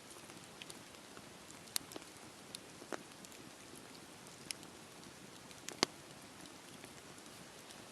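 Campfire burning: a soft steady hiss of flames with scattered sharp crackles and pops, the loudest pop a little before six seconds in.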